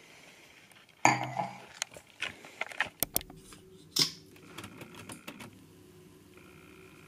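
Sharp clicks and light clatter of small plastic makeup tubes and caps being opened, handled and set down. The loudest knocks come about a second in and about four seconds in, with quicker small clicks between.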